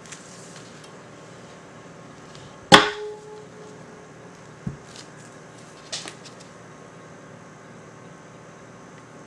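Wire soap cutter cutting a bar off a loaf of cold process soap: one loud, sharp clack with a brief ringing tone a little under three seconds in, then a few soft knocks as the soap is handled on the cutter's plastic bed.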